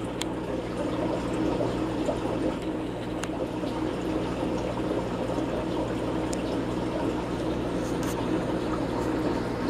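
Aquarium filter running: a steady wash of moving water over a low pump hum, with a few faint clicks.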